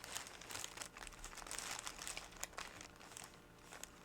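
Packaging crinkling and rustling as it is handled, with small irregular clicks, quieter for a moment about three seconds in.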